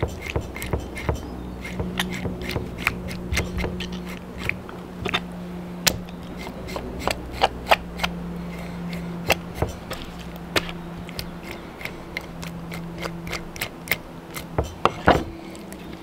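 Knife and hands working fresh squid on a wooden chopping board as it is cleaned and cut: irregular sharp clicks and taps, several a second at times.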